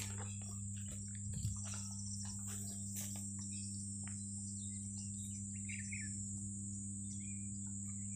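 Steady high-pitched drone of insects such as crickets, over a low steady hum. Scattered rustles and clicks come in the first few seconds, and a short bird chirp sounds about six seconds in.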